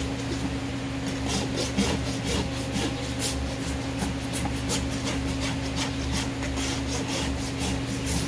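Farrier's hoof rasp filing a horse's hoof wall on a hoof stand, in quick repeated scraping strokes, about three a second, starting about a second in.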